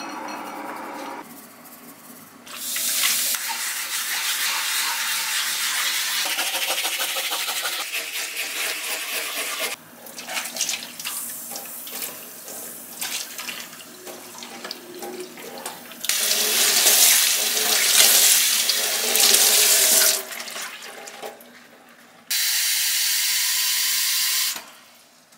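Water running and splashing into a stainless steel kitchen sink in several spells, poured over a polyethylene cutting board to rinse it with hot water. Near the end, a tap runs steadily into an electric kettle as it fills.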